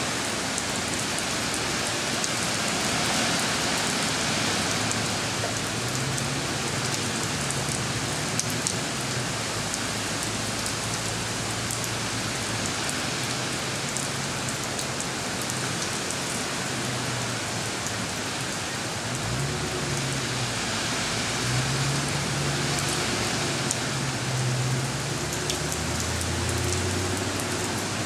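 Steady rain falling on a wet concrete driveway and puddles, with scattered drops ticking close by.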